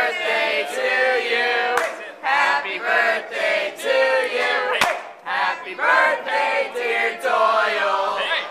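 A group of voices singing a birthday song together, phrase after phrase, with short breaks about two seconds in and again near the middle.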